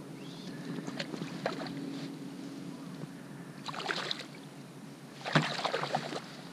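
Scattered small knocks, clicks and rustles of gear being handled aboard a plastic fishing kayak, over a steady low hum; the sharpest knock and a burst of rustling come about five seconds in.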